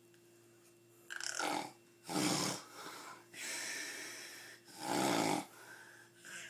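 A sleeper snoring heavily, with harsh rattling snores. The first starts about a second in, louder ones come at about two and five seconds, and a long, softer breath out lies between them.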